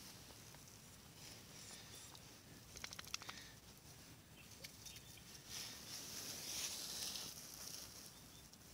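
Faint outdoor ambience: a soft high hiss that swells in the middle, with a cluster of light clicks about three seconds in.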